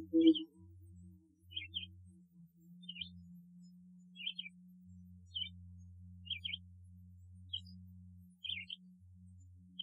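A loud, low, pulsed hooting sound, which the uploader takes for a Bigfoot vocalization, ends about half a second in. After it, faint short high chirps repeat about once a second over a faint low hum that comes and goes.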